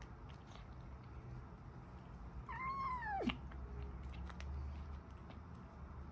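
Scottish fold kitten gives one short meow about two and a half seconds in, rising and then falling in pitch, with a few faint clicks around it.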